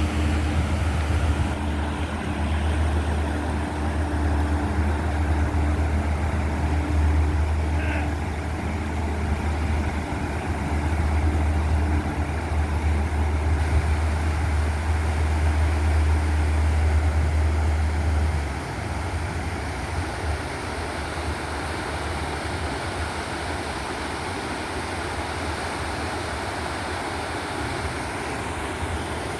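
Steady low rumble of a motor vehicle on the move, which drops to a quieter, even hum about 18 seconds in.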